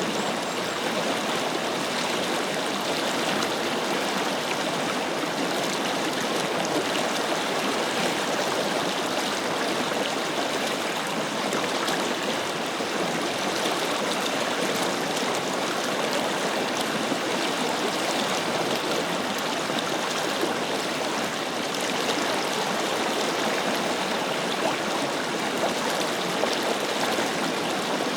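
A forest river flowing steadily, its water rushing and babbling over the stones without a break.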